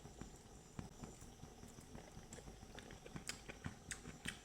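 Someone eating a chicken leg piece: faint, irregular mouth clicks and smacks of chewing, coming more often in the second half.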